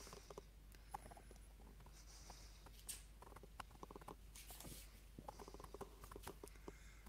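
Near silence: faint room tone with a steady low hum and scattered faint ticks and clicks.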